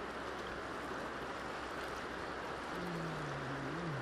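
River water rushing steadily. A brief low hum comes in about three seconds in.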